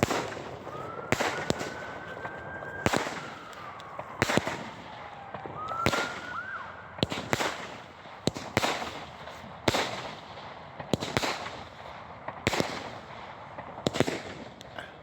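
Fireworks going off: about a dozen sharp bangs, one every second or so, with a whistling firework tone gliding in pitch twice, in the first few seconds and again around six seconds in.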